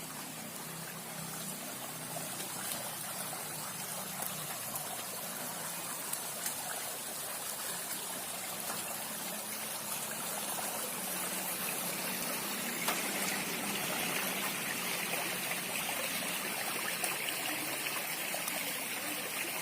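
Water flowing and trickling steadily, with a few faint clicks.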